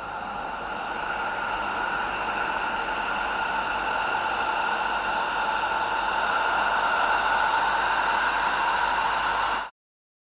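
A hissing noise with several steady ringing tones in it, swelling gradually louder and cutting off abruptly near the end.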